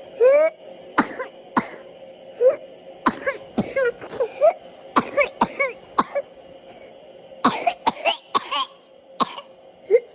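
A person coughing over and over in short, sharp coughs, some bunched into quick fits of several, a few with a brief voiced rasp.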